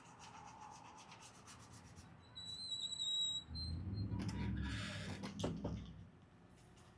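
Scratch-off lottery ticket being scratched, a dry rubbing and scraping. A short, high electronic beep about two and a half seconds in lasts about a second.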